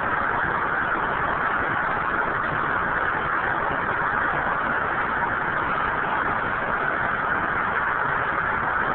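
Steady, unbroken rush of air with no distinct tones, as in a spray-painting setup.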